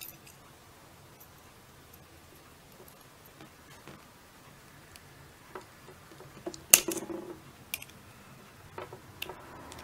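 Small metal clicks and taps of a hand tool and the steel extractor against a pistol bolt as the spring extractor is worked into its groove. The sounds are a few scattered clicks, with one sharper click about seven seconds in.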